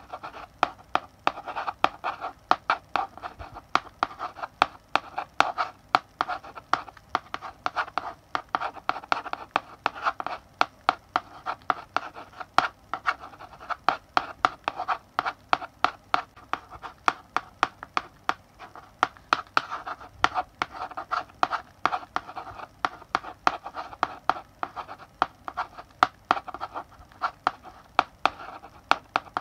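Chalk writing on a blackboard: a steady run of scratchy strokes broken by sharp taps as the chalk strikes the board, several times a second in an irregular rhythm.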